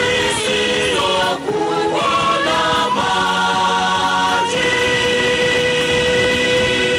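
Choir singing a Swahili gospel song, the voices moving through a phrase and then holding one long chord from about halfway in.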